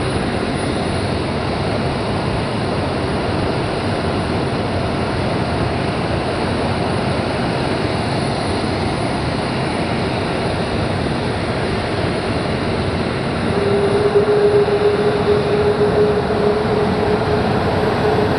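Steady engine noise on an airfield flight line, with a steady hum joining about three-quarters of the way through.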